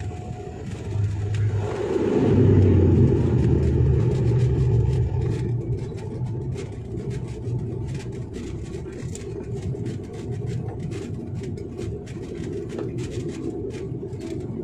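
An airliner's engines and rolling wheels heard from the cabin during the landing roll: a loud rumble that swells about two seconds in, then eases to a steadier drone as the aircraft slows on the runway.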